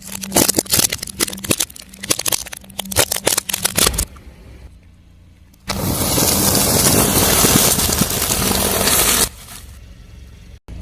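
Car tyre rolling over crunchy objects and crushing them with a rapid crackling, over the steady hum of the running car engine. From about six seconds in, a few seconds of loud, even noise take over before it drops back.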